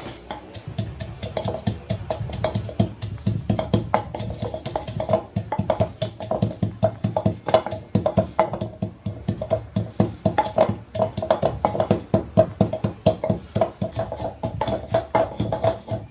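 Wooden pestle pounding dried herbs in a wooden mortar: rapid, steady knocks about five a second, each with the same ringing wooden tone.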